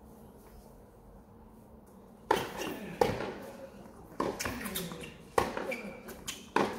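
A tennis rally on a hard court: a series of sharp pops from rackets striking the ball and the ball bouncing, five in all about a second apart, starting about two seconds in.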